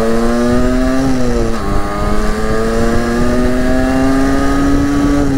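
50cc two-stroke Derbi motorbike engine pulling under load. Its pitch sags about a second in as the rider shifts up, then climbs steadily as it accelerates through the next gear, with wind rumble underneath.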